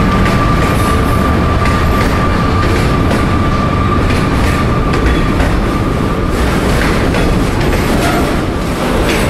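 Freight train wagons rolling past close by: a steady rumble with irregular clatter of wheels over the rail joints. A thin high ringing tone runs along with it and fades out about six seconds in.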